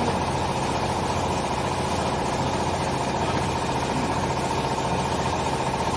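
Textile baler machine running, a steady mechanical hum with a fast, even pulse.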